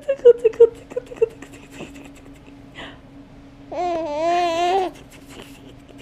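Baby laughing in a quick run of short giggles at the start, then a single drawn-out wavering coo lasting about a second, just under four seconds in.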